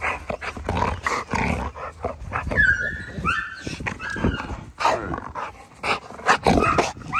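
American bully dogs vocalizing in short, irregular yips and whines. Two higher, longer whines come about two and a half and three seconds in.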